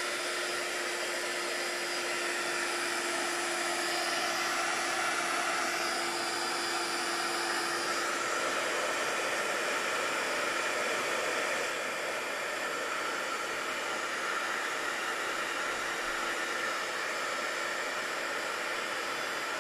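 Craft heat gun blowing hot air steadily onto a paper butterfly to melt embossing powder: an even rushing whoosh with a faint steady hum that fades out about halfway through.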